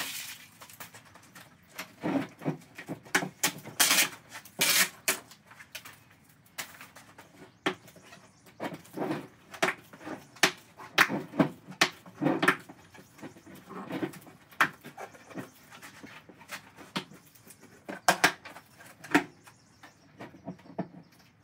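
Irregular knocks, clatter and scuffs of hands-on shop work: a plastic bucket and its lid being handled and set down, with steps and glove rustle between.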